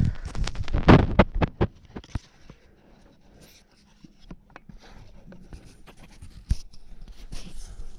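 Clicks and knocks of hand tools and parts while a chainsaw is being taken apart: a quick run of loud knocks in the first two seconds, then scattered light ticks and taps.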